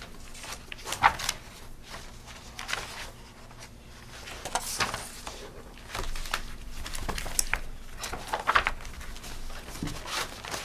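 Sheets of paper rustling and being handled on a table, with scattered short clicks and knocks.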